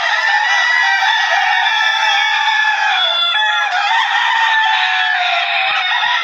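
A large flock of chickens calling all at once: a dense, continuous din of clucking and crowing.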